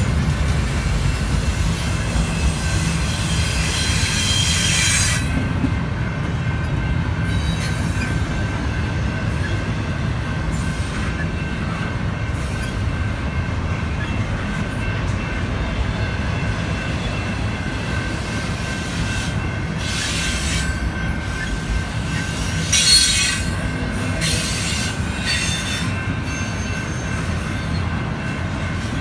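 Double-stack intermodal well cars rolling past: a steady rumble of steel wheels on rail, with a thin steady squeal over it. Louder, higher screeching comes in the first few seconds and again about three-quarters of the way through.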